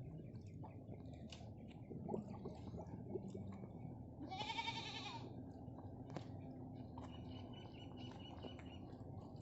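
A goat bleats once, a single pitched call about a second long, midway through, over a faint background with a few small knocks.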